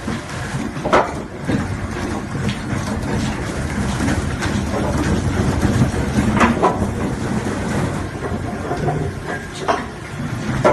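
Spindleless double-roller log debarker running, logs churning against its rollers as the bark is stripped, a steady rumbling clatter. Several sharp knocks stand out, one with a log being loaded onto the machine.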